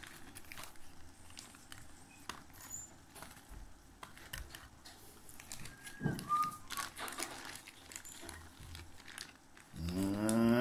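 Faint rustling and crackling of dry cannabis buds being handled and tipped from a bowl into small plastic, with scattered light clicks.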